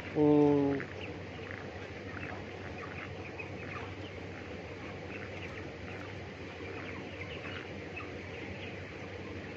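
A flock of broiler chickens in their house, many quick soft peeps and chirps over a steady ventilation-fan hum.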